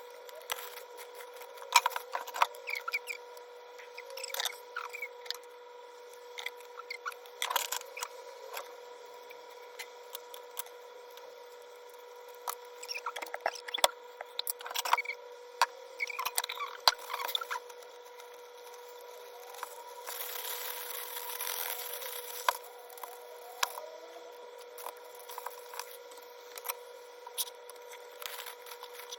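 Kitchen food-preparation handling sounds: scattered clicks, taps and rustles of utensils and containers, with a brief rushing noise about twenty seconds in, over a faint steady hum.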